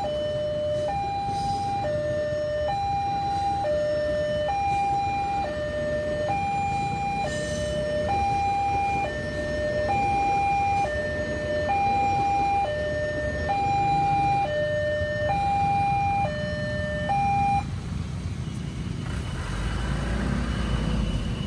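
Railway level-crossing warning alarm sounding a two-note electronic chime, alternating high and low notes about once a second, over the low rumble of a JR205-series electric commuter train passing. The alarm stops about three-quarters of the way through.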